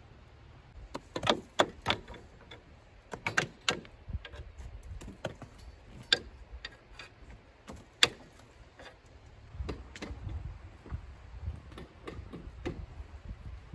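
Hammer striking concrete blocks in a wall under construction: irregular sharp knocks, several in quick succession, then fewer and lighter ones.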